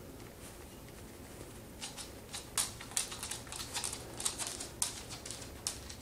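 Light, irregular clicking and scratching from a green-cheeked conure stirring inside its fleece cage hut, starting about two seconds in and going on as a scatter of small ticks several times a second.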